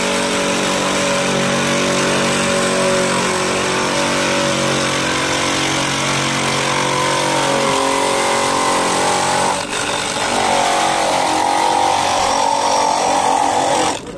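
Electric ice crusher running, its motor humming under the steady grinding rasp of ice blocks being shaved into the bowl. The sound cuts off just before the end.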